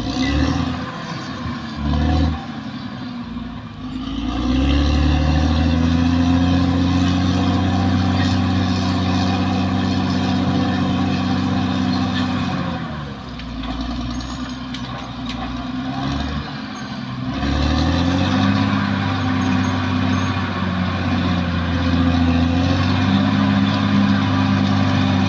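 Caterpillar D6R XL bulldozer's diesel engine running under changing throttle: low at first, it revs up about four seconds in and holds, drops back about halfway through, then pulls up again and holds near the end.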